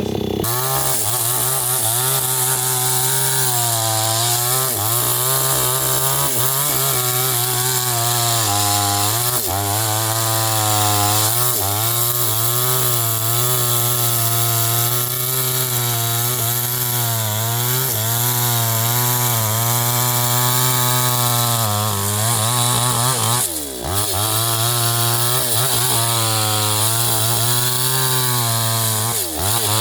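New West 628 two-stroke chainsaw running at full throttle, cutting into a tree, its engine pitch wavering as the chain bites into the wood. The engine speed dips sharply twice in the last third.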